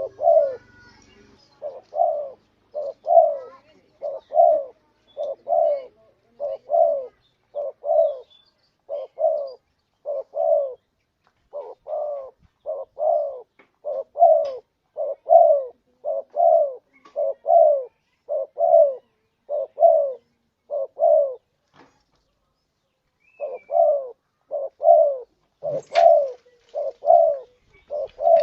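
Spotted dove (tekukur) cooing: a steady run of short, low coo notes in quick pairs and threes, with a pause of about two seconds roughly three-quarters of the way through. A single sharp click sounds shortly after the pause.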